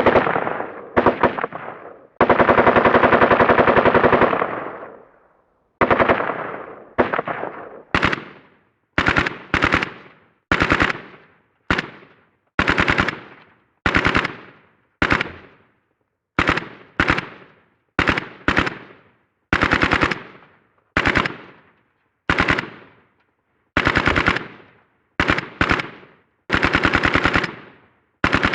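AK-47 assault rifle (7.62×39mm) firing on full automatic in repeated bursts. A long burst of about two seconds comes near the start, then many short bursts of a few rapid shots, roughly one a second, each trailing off in a short echoing tail.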